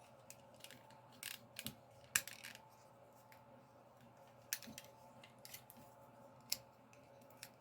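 Plastic clicks and light rattles from a Beast Wars Cheetor action figure's joints and parts being twisted and snapped into place by hand, a few scattered sharp clicks with the loudest about two seconds in.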